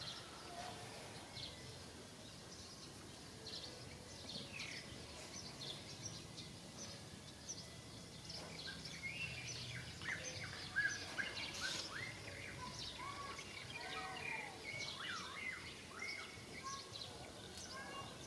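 Short high chirping calls, scattered at first and coming thick and fast from about halfway through.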